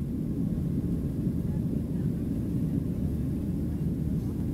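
Steady low rumble heard inside the cabin of a Boeing 737-700 taxiing: its CFM56-7B engines running at low taxi thrust along with the rolling of the airliner on the taxiway.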